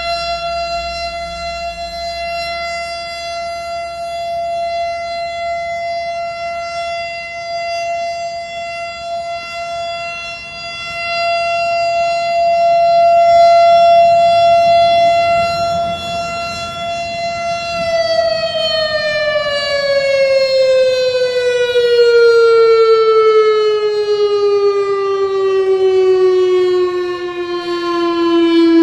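Outdoor rotating civil-defense warning siren sounding one steady wail that swells and fades as its horn head turns. About two-thirds of the way through it winds down, its pitch falling smoothly and steadily.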